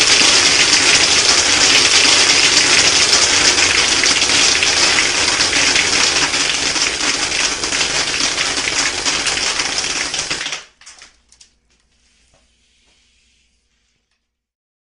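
Loud hiss of compressed air blasting through a homemade soda-bottle airsoft machine gun, with a dense rapid rattle of pellets, for about ten seconds before it cuts off suddenly; a few clicks follow.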